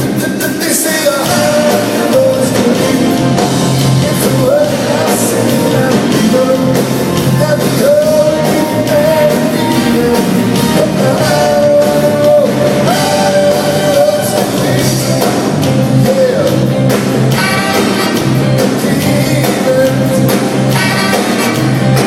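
Live rock band playing a song with a lead singer, over a pulsing bass line, with long held vocal notes that bend in pitch.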